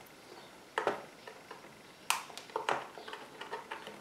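A small cardboard box being opened by hand: scattered taps, scrapes and rustles of card and paper. The sharpest come about a second in and about two seconds in, with a run of smaller ones after.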